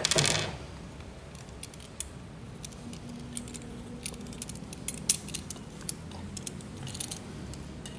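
Scattered light metallic clicks and clinks of small metal tools and fittings being handled, irregular and spread through the few seconds.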